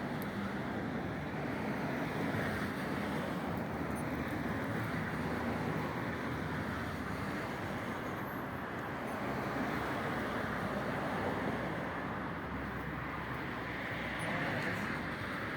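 Steady street background noise: an even hiss and rumble that swells and eases slowly, with no single event standing out.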